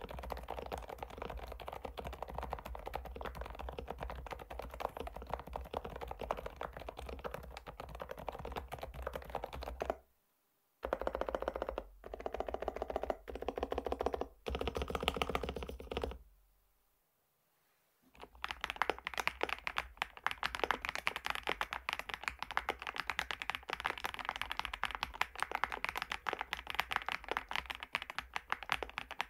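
Fast typing on an FL-Esports OG retro mechanical keyboard: a dense, steady run of keystroke clacks, broken by two short silences, about ten seconds in and again around sixteen seconds in.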